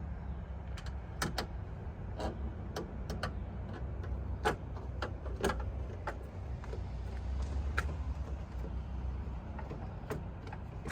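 Irregular sharp clicks and taps of a tool and metal hardware against the door while the door handle's mounting bolts are put in, over a steady low hum.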